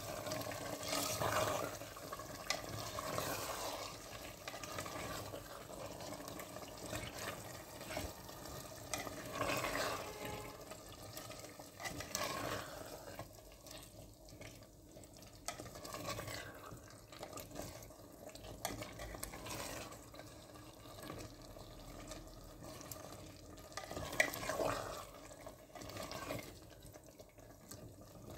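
A spoon stirring chicken pieces through hot oil and tomato in an earthenware pot, with wet, sloshing strokes that come and go every few seconds.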